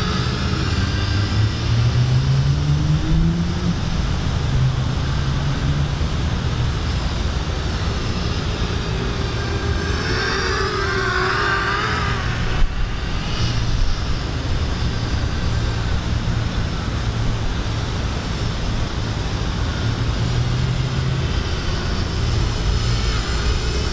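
Gravity X210 racing quadcopter flying at a distance, its motors and propellers whining and shifting in pitch as the throttle changes, over a steady low rumble.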